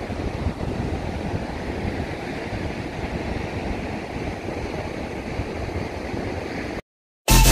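Rough sea surf breaking on a beach, a steady rush of waves with wind buffeting the microphone. It cuts off suddenly near the end.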